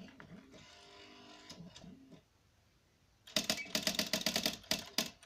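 Electric Smith Corona typewriter printing: a loud, rapid, even run of type strikes, about ten a second, starting about three seconds in and pausing briefly near the end. Before it there is a faint pitched sound that changes in pitch.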